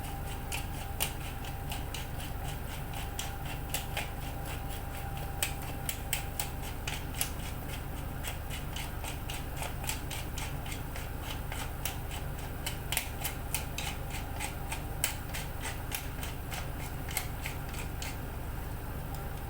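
Pot of clam broth heating on a stove toward the boil: a steady low hum with irregular sharp ticks and pops throughout.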